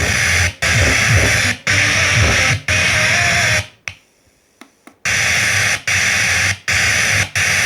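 Loud radio static hiss played through a home theater system's speakers, cutting out sharply about once a second, with a near-silent gap of about a second around four seconds in.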